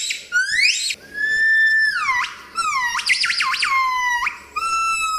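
Gibbon calling: pure, whistle-like hoots. A rising whoop comes first, then long held notes that slide down in pitch, a quick string of up-and-down notes about three seconds in, and a long, steady note near the end.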